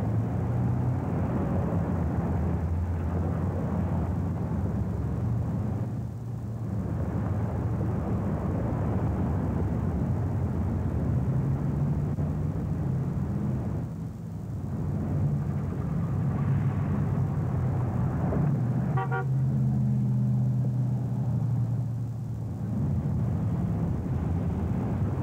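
Busy road traffic, cars and trucks running past without a break, recorded on lo-fi early videotape. A short horn toot comes about three-quarters of the way through.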